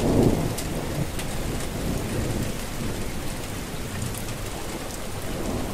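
Steady rain falling, with scattered drops ticking. A low rumble of thunder at the start fades away within the first second.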